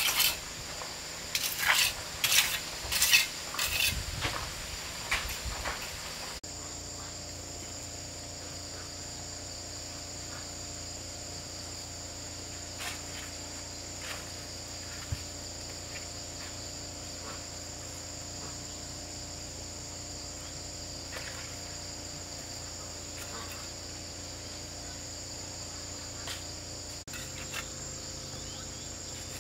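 A run of sharp clinks and scrapes for about six seconds, then, after an abrupt change, a steady insect chorus: a continuous high-pitched drone in two tones that runs on unbroken.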